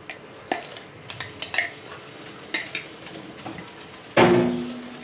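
Glass jar with a wire-clasp lid clinking and tapping against a stainless steel bowl as thick green seasoning is tipped out, with one louder clank about four seconds in that rings briefly.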